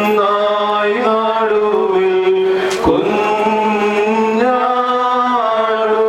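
Men's voices singing an Orthodox liturgical chant together, holding long notes that step to a new pitch about every second.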